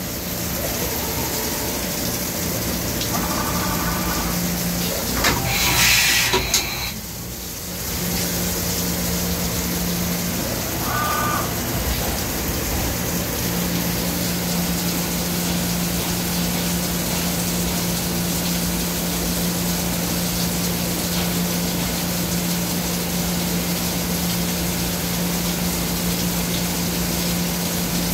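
Doosan Puma MX1600ST mill-turn centre running its B-axis milling spindle at speed: a steady hum over an even machine hiss. A short louder burst of hiss comes about six seconds in, and the hum drops out briefly a few times.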